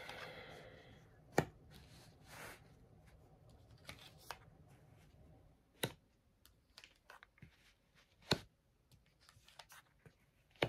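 Tarot cards drawn from a deck and laid down one at a time on a cloth-covered table: light rustling and handling, with a few sharp clicks as the cards are snapped over and set down, about four of them louder than the rest.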